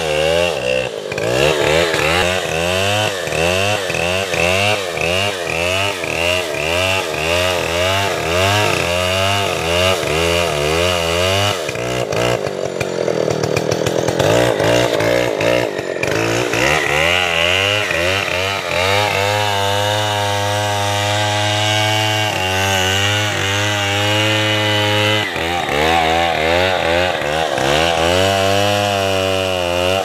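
A large two-stroke gas chainsaw cutting into a thick tree trunk. For much of the first half the engine's pitch rises and falls rapidly as the chain bogs in the wood and picks up again; in the second half it runs steadier at high revs.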